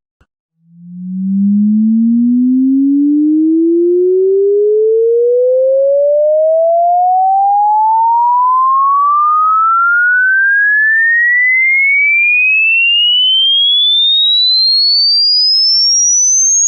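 A single electronic sine tone sweeping steadily upward in pitch, from a low hum to a high whistle, fading in about a second in and then holding an even loudness: a hearing-test frequency sweep.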